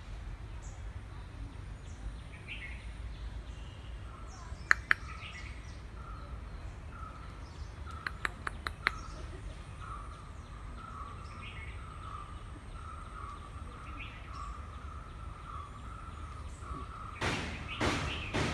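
Outdoor ambience: birds chirping over a steady low rumble. Two sharp clicks come about five seconds in and a quick run of about five clicks around eight seconds in, with louder noisy bursts near the end.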